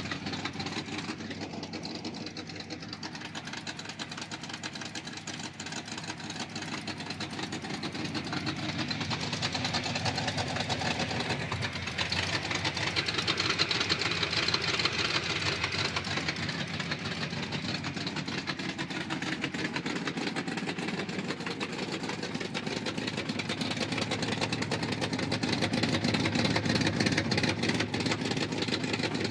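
Vehicle engine idling with a rapid steady tick, which the owner puts down to a bad cam lobe; it grows somewhat louder partway through.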